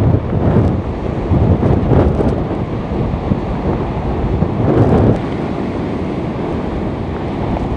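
Wind buffeting the microphone over the steady roar of heavy surf, with loud low gusts in the first couple of seconds and again about five seconds in.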